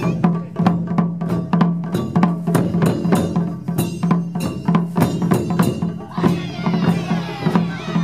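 Japanese taiko ensemble drumming: shoulder-slung okedo-daiko and stand-mounted nagado-daiko beaten with sticks in a steady, driving rhythm of about four to five strokes a second, with sharp clacking hits mixed in.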